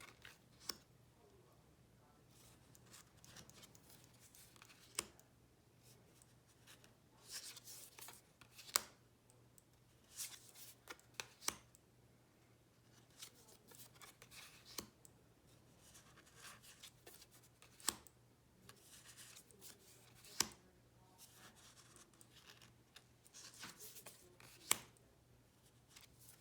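Tarot cards being flipped through by hand one at a time: quiet, irregular card clicks and light sliding rustles every second or few, over a faint steady low hum.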